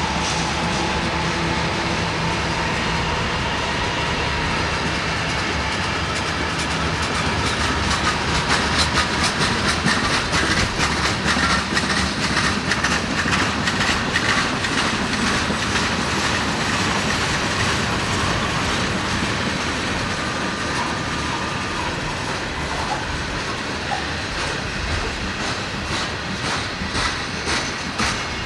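Freight train cars rolling past, their wheels clicking rhythmically over rail joints, the clicking heavier from about eight seconds in. A low diesel locomotive hum fades out in the first few seconds.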